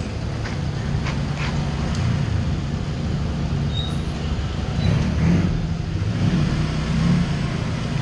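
Steady low hum of an engine running at idle, a little louder after about five seconds, with faint street noise around it.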